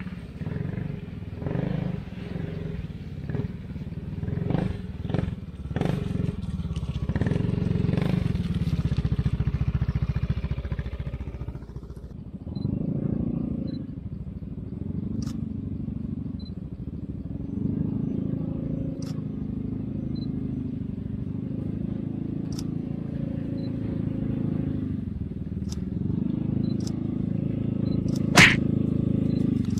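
Automatic scooter engine running and labouring on a rough track, its note swelling up and down as the throttle is worked. A run of knocks and clatter comes in the first several seconds, and there is one sharp click near the end.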